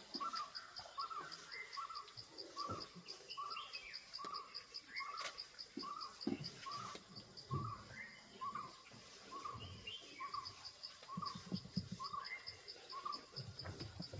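A bird repeating a short rising-and-falling whistled call about once a second, over an insect chirping steadily at a high pitch about four times a second.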